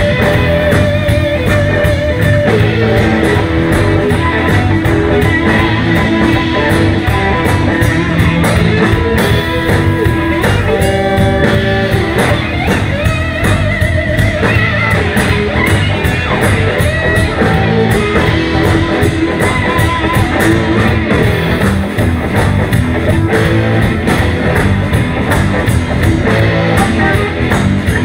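Live electric blues band playing loud and steady: electric guitars over bass, drums and keyboard, in the Chicago electric blues style.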